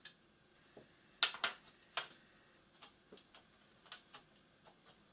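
Irregular small clicks and taps of a laptop's case being worked loose by hand, its bottom cover being pried and lifted, with a few louder clicks a little after a second in.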